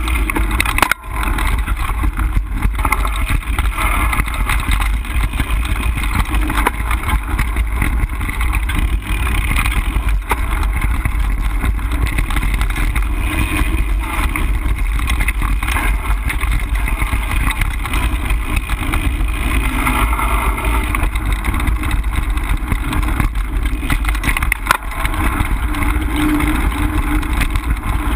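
Wind buffeting the action camera's microphone in a steady low rumble, mixed with the noise of a mountain bike rolling over a dirt singletrack trail.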